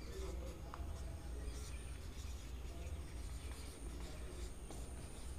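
Faint scratching of a felt-tip marker writing on a whiteboard, in short strokes, over a low steady hum and a thin high whine.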